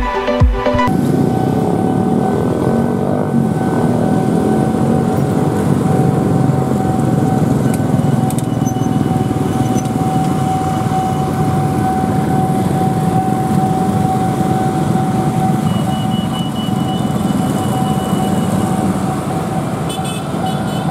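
Dense motorcycle and scooter traffic crossing a railway level crossing: many small engines running and passing, with a steady high tone throughout. The tail of an electronic music track stops about a second in.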